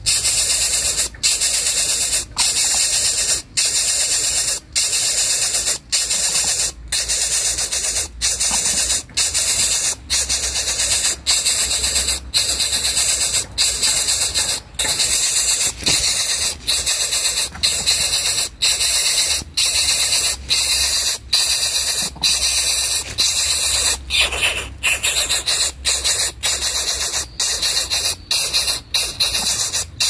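Coucal nestling hissing over and over in a steady rhythm, each hiss lasting about a second and cut by a brief pause.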